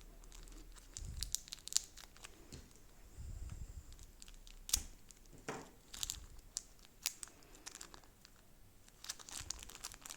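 Faint crinkling and rustling of packaging being handled, with scattered light clicks and a few short, sharper rustles.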